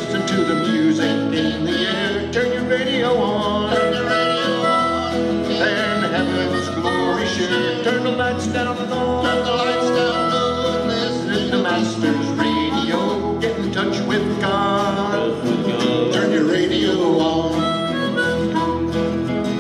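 Bluegrass band playing an instrumental break, harmonica taking the lead over strummed acoustic guitars and mandolin.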